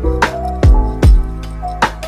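Background music with a beat: deep booming kick drums and sharp snare hits over held chords.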